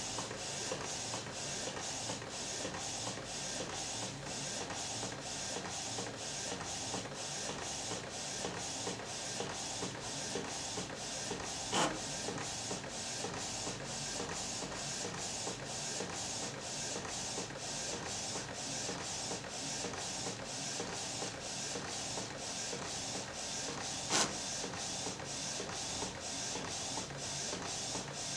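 Inkjet printer printing a photo page: the print carriage sweeps back and forth in an even rhythm of about two strokes a second. Two louder sharp clicks stand out about twelve seconds apart.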